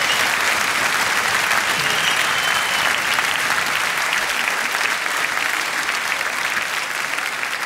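Arena crowd applauding steadily, easing slightly toward the end.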